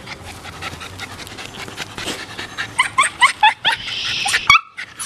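Miniature pinscher with soft chewing and rustling in the grass at first, then a quick string of short, high, rising whimpering squeaks, followed by a breathy pant near the end.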